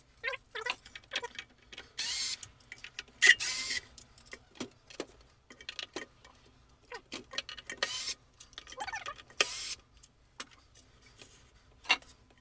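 Bench grinder being shifted and nudged by hand on a shelf board: scattered knocks, clicks and rattles, with a few short scraping slides.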